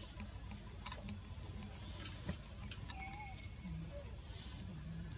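Steady high-pitched insect chorus, with a few faint clicks.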